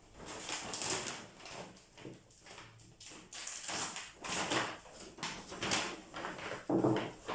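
Grocery items and their packaging being handled: irregular rustling and crinkling noises, with a louder knock a little before the end.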